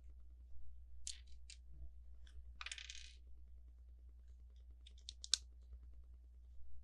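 Loose plastic Lego pieces clicking and clattering as they are handled: a few sharp clicks about a second in, a short rattle of pieces shortly after, then a quick run of clicks near the end.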